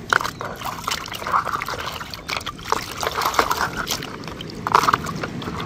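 Water sloshing, trickling and splashing irregularly in a plastic bowl as a hand swishes a muddy toy figure through it to wash off the dirt.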